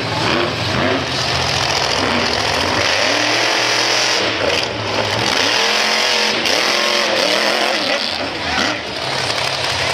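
Monster truck engines revving hard as the trucks race, their pitch rising and falling over and over.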